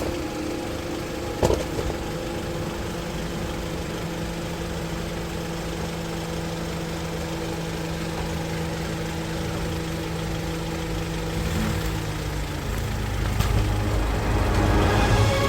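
Vehicle engine idling with a steady hum and one sharp click about a second and a half in. Near the end the hum gives way to a deeper, louder rumble.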